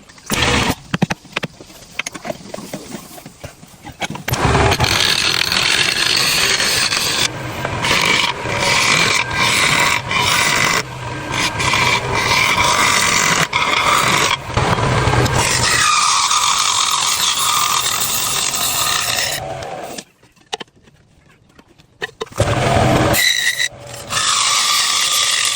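Woodworking tool working on wood: a loud noisy grinding with a steady whine, broken by abrupt cuts between clips, with a brief near-silent gap about two-thirds of the way through.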